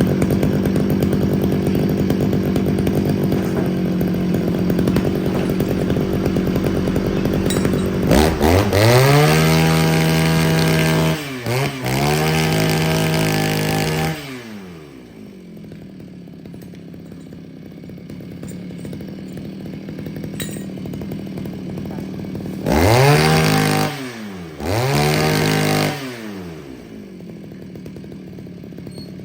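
Two-stroke engine of a Thai-made Husqvarna 543 brush cutter (41 mm bore) idling, then revved up to high speed four times in two pairs. Each rev rises quickly, holds for two or three seconds and drops back to idle as the throttle trigger is squeezed and released during a test run.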